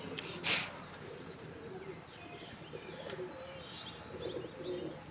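Domestic pigeons cooing, with low wavering coos repeating, and faint high chirps of small birds. A brief burst of noise sounds about half a second in.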